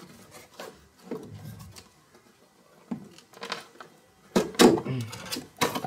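Cardboard headphone box and its paper inserts being handled and pulled apart: light scraping and rustling, then a louder run of rustles and knocks from about four seconds in.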